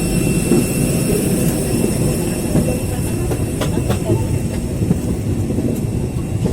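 Steady, loud rumble of a vehicle in motion heard from inside it, with faint steady high-pitched whine tones above it and a few small clicks.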